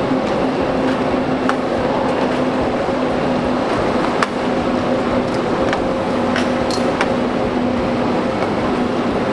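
Steady hum and rushing noise of a train platform beside standing KTX high-speed trains, with a low even tone and another an octave above it. A few sharp clicks from footsteps and a rolling suitcase on the platform floor.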